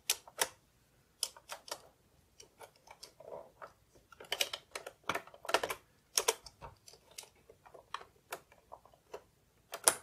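Irregular plastic clicks and taps of keys and a keycap being pressed and worked on a Canon Typestar 10-II typewriter keyboard, with a sharp click near the end as the keycap comes right back off.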